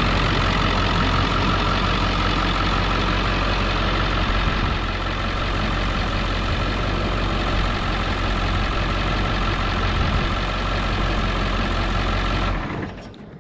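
Ford 7.3-litre Power Stroke V8 turbo-diesel running steadily at idle, then shut off near the end.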